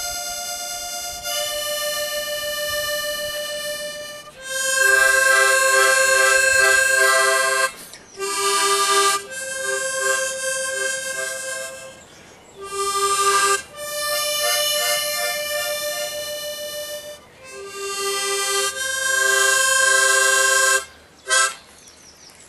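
A harmonica playing a slow tune in held chords, in phrases broken by short pauses, with the music stopping shortly before the end.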